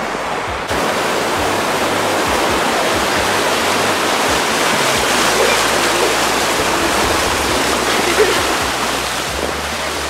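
Breaking ocean surf washing up the beach: a steady rush of foaming whitewater that sets in just under a second in.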